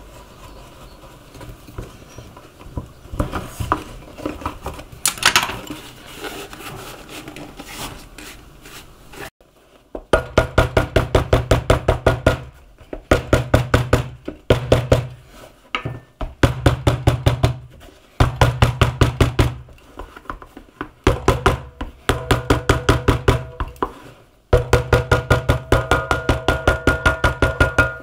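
Scattered handling clicks and rustling, then from about ten seconds in a small machine running in short bursts of one to two seconds, each a fast, even ticking over a steady low hum, stopping and starting again about ten times.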